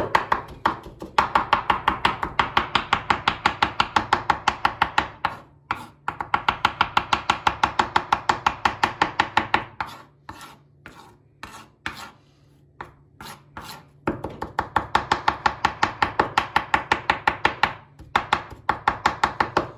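Kitchen knife rapidly chopping garlic fine, about five quick strokes a second in runs of several seconds, with a few slower scattered chops in the middle.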